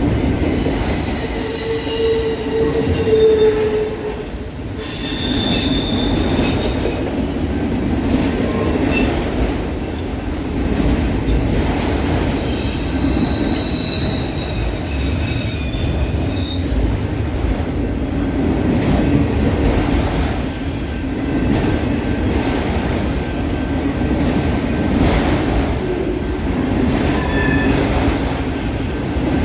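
Freight cars of a long manifest train rolling steadily past, a continuous rumble of wheels on rail with thin, high-pitched wheel squeals that come and go.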